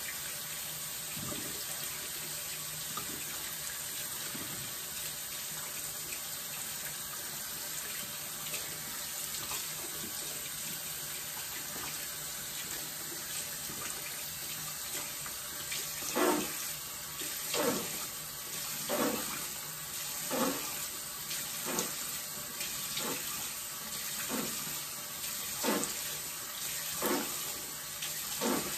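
Bathroom sink tap running steadily. From a little past halfway, a regular series of about ten splashes, roughly one every second and a half, as cupped hands splash warm water onto the face.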